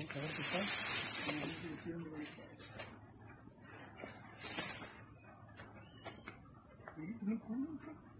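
Steady, high-pitched chorus of insects chirring in woodland at dusk, unbroken throughout.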